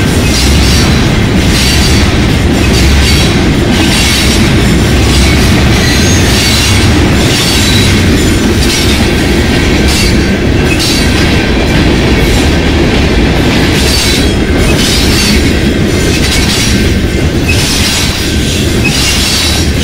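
Freight cars rolling past close by: steel wheels on the rails making a steady, loud rumble with repeated irregular clicks.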